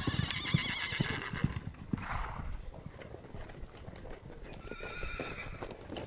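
Ridden horses walking on a packed-snow road, their hooves thudding softly, while a horse whinnies with a trilling call in the first second and again near the end.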